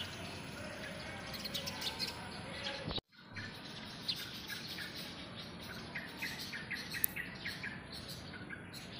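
Small birds chirping in short high calls over a steady outdoor background, with a quick run of chirps about six to seven seconds in. The sound drops out briefly about three seconds in.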